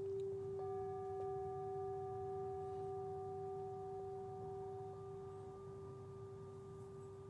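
Soft meditation background music of held pure tones: one steady low note sounds throughout, joined about half a second in by two higher held notes, and the whole fades slowly.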